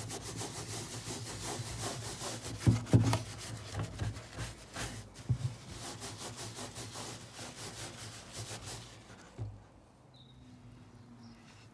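Stiff-bristled scrub brush rubbing back and forth over the wet plastic of a caravan waste water container coated in Cif cream cleaner: quick, repeated scratchy strokes that stop about nine seconds in.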